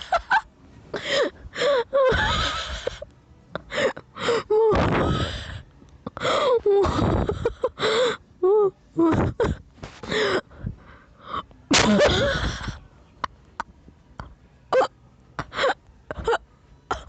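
A person wheeze-laughing: breathy, squeaky fits of laughter with gasps for breath, in irregular bursts that turn into short snatches in the last few seconds.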